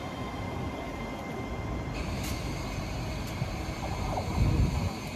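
Train running on the line: a steady rumble of wheels and running gear with a faint high steady tone, a hiss that grows about two seconds in, and a louder low rumble about four and a half seconds in.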